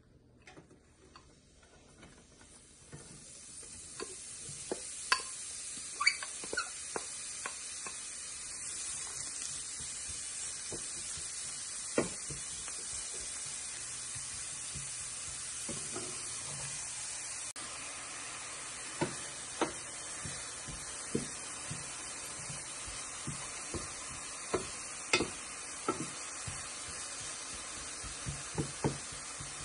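Chopped leek sizzling in hot oil in a stainless steel frying pan, the sizzle building up over the first few seconds after the leek goes in and then holding steady. A wooden spatula knocks and scrapes against the pan again and again as the leek is stirred.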